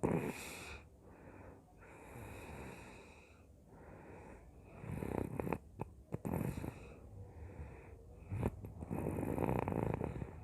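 A person snoring in sleep: about four noisy breaths a couple of seconds apart, the loudest at the start and near the end.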